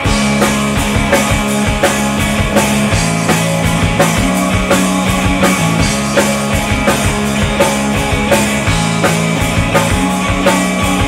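Rock band playing live in an instrumental passage: drums, a bass line holding long low notes that change every second or two, and guitar, all coming in loud together at the start.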